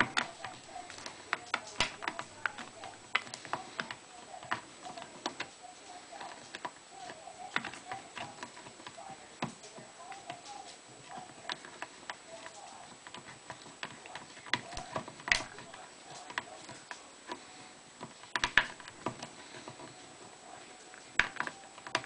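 Victorinox Swiss Army knife's lever can opener punching and prying its way around the rim of a tin can. Each stroke through the steel lid gives a sharp click, in an irregular string of about one to three clicks a second.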